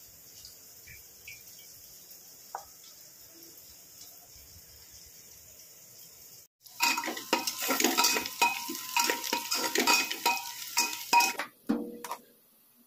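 Steel spatula stirring onions frying in an aluminium pressure cooker: a quick run of ringing metallic clanks and scrapes against the pot over a sizzle. It starts about halfway through, after a stretch of faint background noise, and stops about a second before the end.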